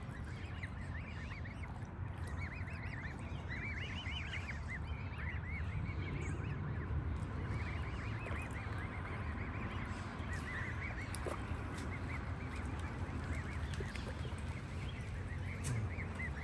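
A flock of birds calling over and over in short, repeated calls as they crowd in to be fed grain, over a low steady rumble.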